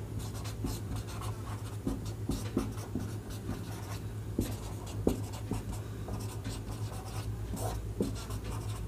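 Handwriting: short, irregular writing strokes as an equation is written out, over a steady low hum.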